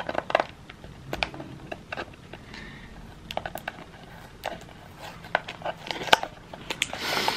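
Fingers handling and opening a perfume box: irregular light clicks, taps and scrapes on the box, with a brief hissing rustle near the end.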